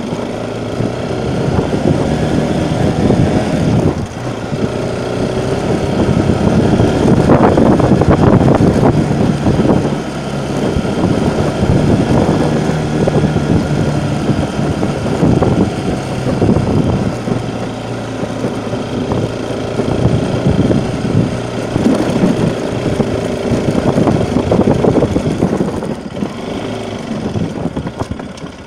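Bajaj Pulsar NS200's single-cylinder engine pulling the bike up a stony dirt track. The throttle opens and eases, with a few brief drops in engine sound.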